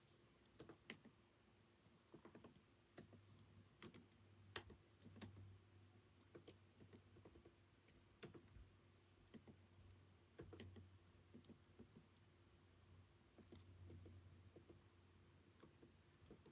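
Computer keyboard being typed on: soft, irregular keystrokes, a few a second, over a low hum.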